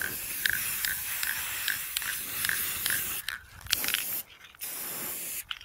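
Aerosol spray can of Rust-Oleum 2X gloss black paint spraying with a steady hiss, which stops a little after three seconds in and then comes in short spurts with brief breaks. A faint regular ticking, a little over two a second, runs under the hiss.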